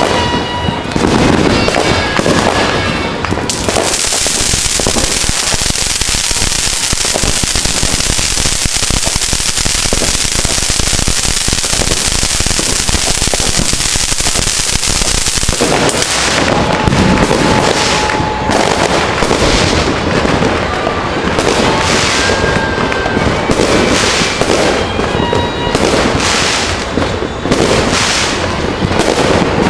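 Fireworks going off close by. Crackling and pops with short whistles at first, then a spark fountain firework hissing loudly and steadily for about twelve seconds. After that comes dense firecracker crackling with occasional short whistles.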